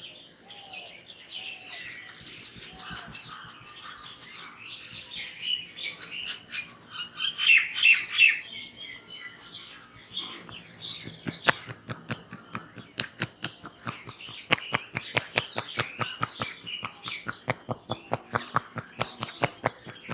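Small birds chirping and twittering, loudest in a burst near the middle. From about halfway, a fast even run of sharp hand taps, about four a second, from tapping massage.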